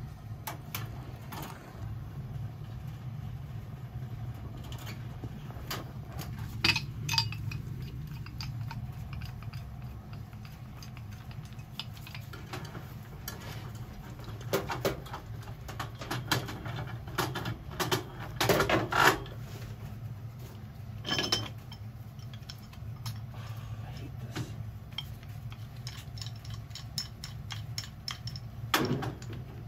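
Scattered metallic clinks, knocks and rattles as tools and parts are handled inside a gas boiler's burner compartment, over a steady low hum. A sharper knock comes near the end, as a pipe wrench is set on the failed gas valve.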